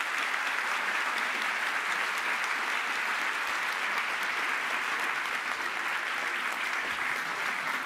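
A large theatre audience applauding, a steady, dense clapping that holds throughout.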